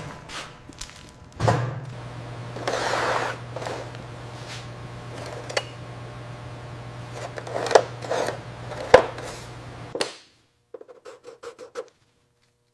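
Rubbing and scraping work on the figure, with frequent sharp clicks and knocks, over a steady low hum. The hum and scraping cut off about ten seconds in, leaving a few faint light taps.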